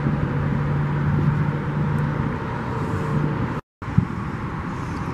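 Steady rumble of road traffic with a low hum, broken about three and a half seconds in by a moment of dead silence and then a single thump.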